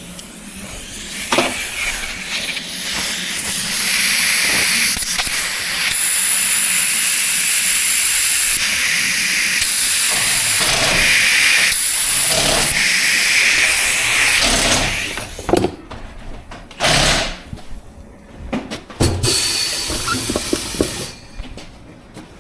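Compressed air hissing loudly into a freshly fitted tyre on a tyre changer to inflate it and seat the beads, cutting off about fifteen seconds in. A few short knocks follow.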